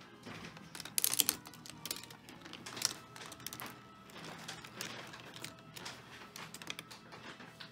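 Steel marbles and wooden parts of a laser-cut wooden marble run clicking and rattling, with a cluster of loud clacks about a second in.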